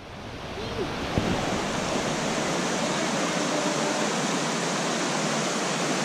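Rushing water of a boulder-strewn stream's rapids and waterfall: a steady, even hiss that swells up over the first second or two and then holds.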